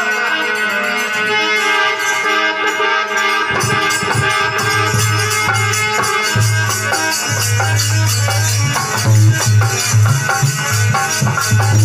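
Instrumental interlude of a Rajasthani devotional bhajan: a held melody, joined about three and a half seconds in by a steady low beat and rattling percussion.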